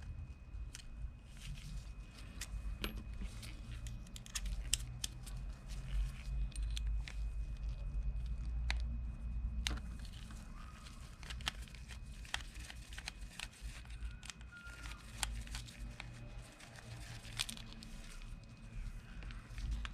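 Scattered clicks, taps and scrapes of small metal parts and tools as a spinning fishing reel, seized with rust, is worked apart by hand, over a low steady hum.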